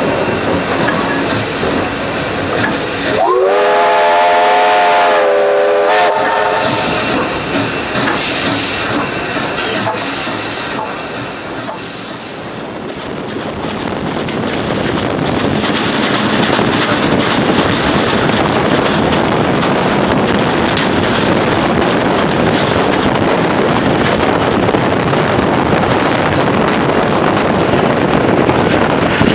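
Steam locomotive 3237, a NSWGR C32 class 4-6-0, sounds its whistle once for about three seconds, a few seconds in. Otherwise the locomotive working and the train running on the track make a steady noise, heard close up from the carriage behind. The noise dips around twelve seconds in, then builds back to a steady level.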